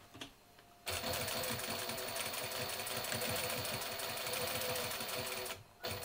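Sewing machine stitching in one steady run of rapid, even stitches for about four and a half seconds, stopping, then a brief short burst of stitching near the end.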